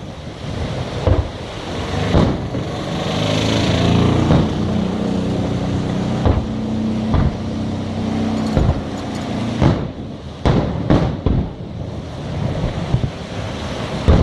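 Fireworks shells bursting, a string of sharp bangs at uneven intervals, with a low steady drone underneath from a few seconds in until about two thirds of the way through.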